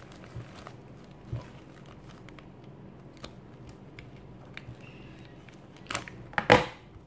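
Staples being pried out of a strip of stapled, folded cloth petals with a stapler: small clicks and cloth rustling, with two sharp, louder crackles near the end.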